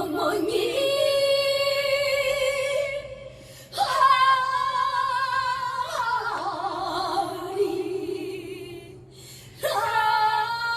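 Music: a woman singing long, held notes with vibrato, in three drawn-out phrases.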